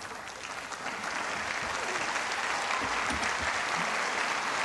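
Theatre audience applauding at the end of a performance, the clapping swelling about a second in.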